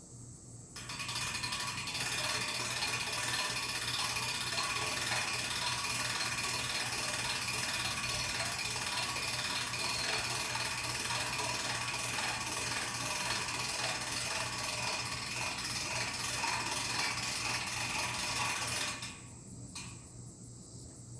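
A ratchet mechanism cranked continuously: rapid, even clicking that starts about a second in, runs steadily for about eighteen seconds and stops abruptly.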